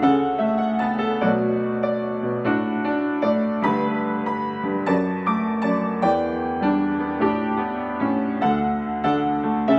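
Solo acoustic upright piano played: a steady flow of melody notes, a couple a second, over held bass notes.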